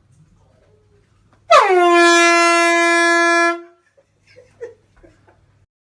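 Handheld air horn sounding one blast about a second and a half in. It opens with a quick drop in pitch, then holds a steady tone for about two seconds and stops.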